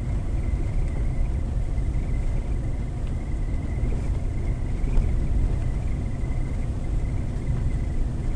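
Steady low rumble of a car driving, heard from inside the cabin on a dashcam, with a faint thin high tone running through it.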